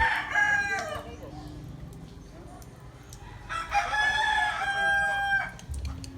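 Rooster crowing twice: the tail of one crow dies away in the first second, then a full crow of about two seconds comes in the middle, held steady and dropping at the end.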